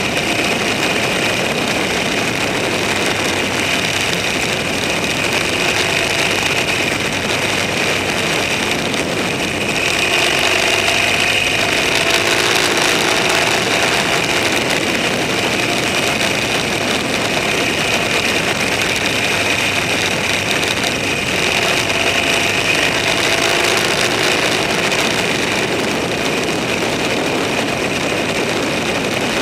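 A vehicle engine running steadily while travelling, with faint shifts in engine pitch now and then, under an even rushing noise of wind and road.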